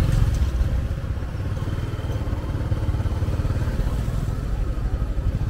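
A motorcycle engine running with a steady low rumble.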